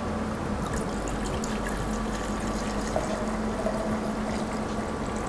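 Whisky pouring from a bottle into a glass measuring jug in a steady, unbroken stream as the jug fills.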